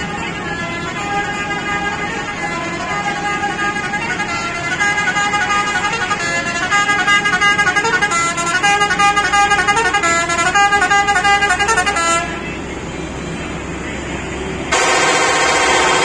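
A Pakistani bus's musical pressure horn plays a tune of stepped notes in a repeating pattern, getting louder as it comes closer, then stops sharply about twelve seconds in over road traffic noise. Near the end a louder, harsher horn blast starts.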